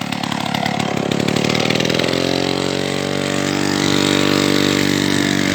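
Two-stroke Ural chainsaw engine on a homemade trike, running unevenly at low revs. About two seconds in it picks up and settles into steady, higher-revving running.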